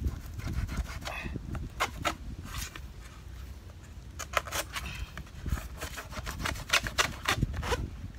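Stingray-meat bait being cut down to hook size and worked by hand close to the microphone: a run of irregular scraping and rubbing strokes over a low rumble.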